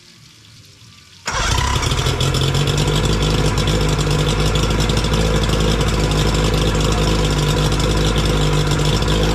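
Mariner 60 hp three-carburetor outboard engine running steadily, coming in suddenly about a second in, after its fuel pump diaphragm rebuild for a lean sneeze.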